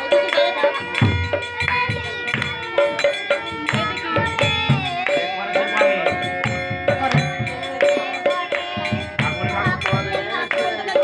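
Live music: a boy singing along with a hand drum beaten in a steady rhythm, over held steady tones and bright metallic clinks.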